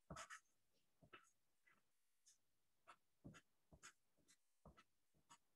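Faint, irregular scratching of a wooden pencil writing on paper, one short stroke after another.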